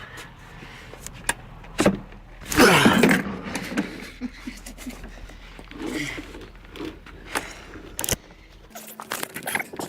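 Knocks, bumps and rubbing from a toy car being pushed and squeezed as a grown man tries to force himself into it. The loudest is a rough scraping stretch about two and a half seconds in, with single sharp knocks scattered through.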